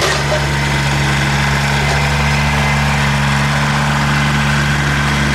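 Kubota BX sub-compact tractor's three-cylinder diesel engine running steadily at an even pitch.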